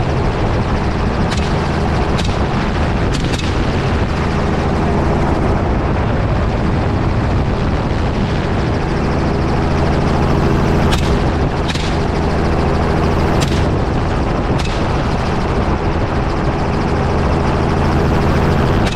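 Gunshots fired from a hunting helicopter over its steady rotor and engine drone: a few shots early on, then a quicker cluster in the middle.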